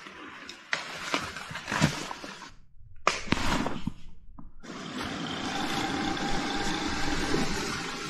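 Sharp clicks and rustling in short pieces, cut off abruptly several times. About five seconds in, a steady rushing, hissing noise begins and carries on.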